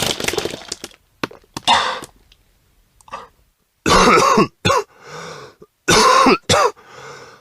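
A person retching and gagging in repeated bursts: the tail of a long heave, then short harsh throat sounds with two strong strained vocal heaves about four and six seconds in, separated by gasps and quick wet clicks.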